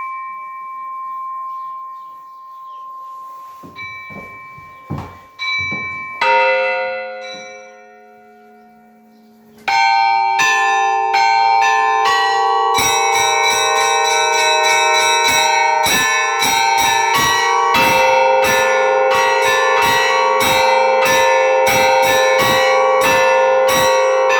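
Church bells ringing: a single bell's tone dies away, a few separate strikes follow, and a larger, deeper bell is struck about six seconds in and rings on. From about ten seconds in, many bells are struck together in a rapid, continuous peal.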